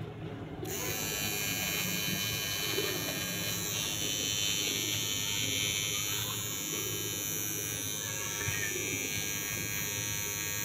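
Philips electric beard trimmer buzzing steadily as it is run over the chin and jaw.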